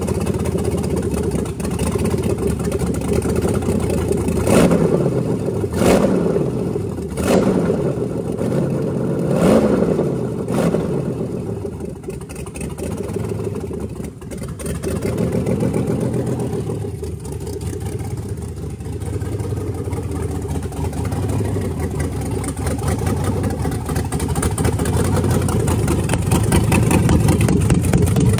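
Overhauled 2000 Corvette 5.7-litre LS1 V8 with a TSP Madd Max camshaft running on an engine test stand. It idles, then is revved in about five quick throttle blips between about four and eleven seconds in, each rising and falling back, before it settles back to a steady idle.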